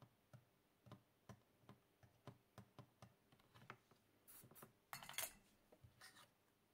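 Faint, irregular clicks and ticks, about two or three a second, while a joint on a small circuit board is soldered. Near the end come a few brief, louder clatters and scrapes, the loudest about five seconds in, as the small PCB badge with its coin-cell holder is handled on the desktop.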